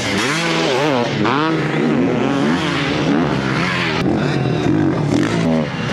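Off-road racing motorcycle engines revving up and down over and over, with more than one bike audible at once as they accelerate and ease off over the dirt track.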